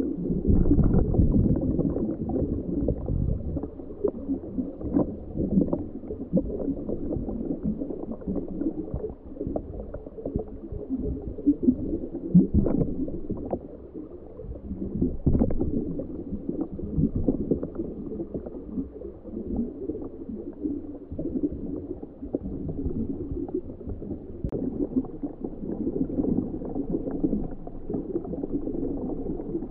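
Muffled underwater gurgling and rumbling picked up aboard a homebuilt ROV moving slowly over the seabed, with scattered sharp clicks. It is loudest at the start and again a little past the middle.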